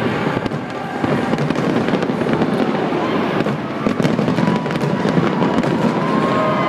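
Aerial fireworks bursting in quick succession: many bangs and crackles close together, with no pause in the barrage.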